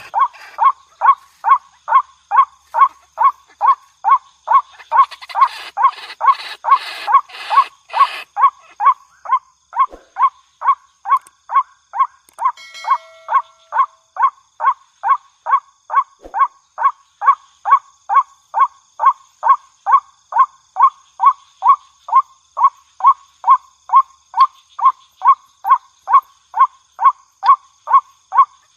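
Waterhen calling over and over at a very even pace, about two short calls a second. A rough, hissing noise runs under the calls for a few seconds about a fifth of the way in.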